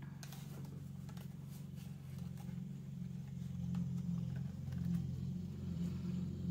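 Lawn mower engine running steadily, muffled through closed windows, growing louder as it comes closer. Light clicks and rustling of a ring-binder cash wallet's pages are heard over it.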